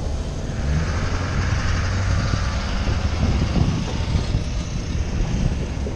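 Road traffic passing close by: a car and a flatbed work truck driving past, their engines giving a steady rumble.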